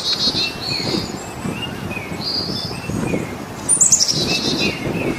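Small birds chirping in short repeated notes, with a fast falling trill right at the start and another, the loudest sound, a little before the end. Underneath, low rasping breaths come every second or two, the gasping of a dying zebra.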